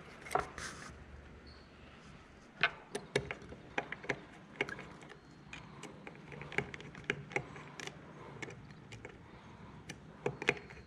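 Irregular small clicks and taps of a thin screwdriver tip working against a Hikvision ColorVu bullet camera's housing, prying at the glued side strips at its front. They come thicker from about two and a half seconds in.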